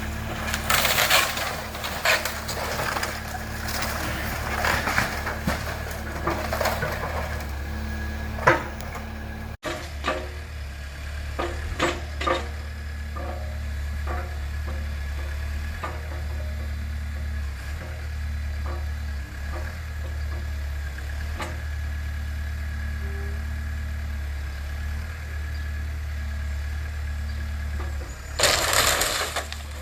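Heavy demolition machine's engine running steadily while a burned wooden house is torn down, with wood framing cracking, snapping and crashing. The breaking is dense for the first several seconds, there are scattered knocks after a cut about ten seconds in, and another loud crash near the end.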